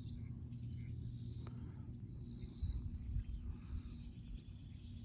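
Field insects chirring in a steady, high, even drone over a low rumble on the microphone, with a few soft low bumps a little past halfway.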